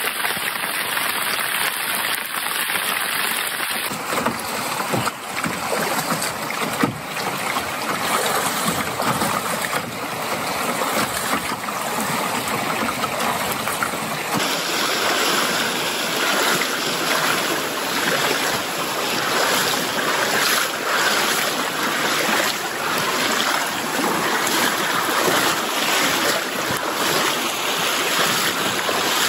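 Heavy rain hissing on a lake surface for the first few seconds, then shallow river rapids rushing steadily around a canoe being waded upstream.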